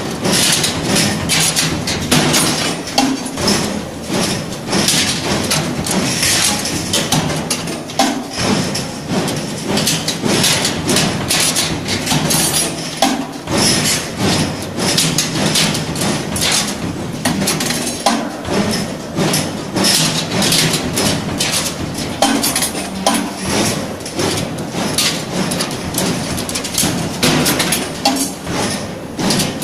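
Automatic TJK WG12E straightening and stirrup-bending machine running, feeding and bending steel bar, with a steady stream of rapid metallic clicks and clatter.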